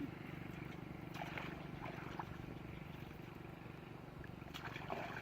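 A steady, faint low motor hum runs throughout, with a few short high chirps or squeaks just after a second in and again near the end.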